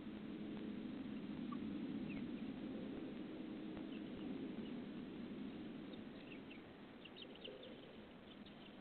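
Faint backyard sound through a security camera's microphone: a low steady hum, loudest in the first half, with a scatter of short, high bird chirps from about six seconds in.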